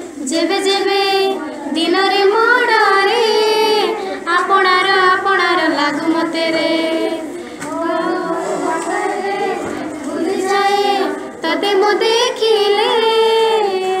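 A high solo voice singing an Odia song, the notes bending and wavering in long melodic phrases.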